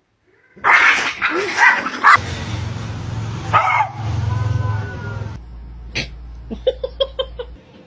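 A dog barking and yipping in short bursts, with a quick run of yips near the end.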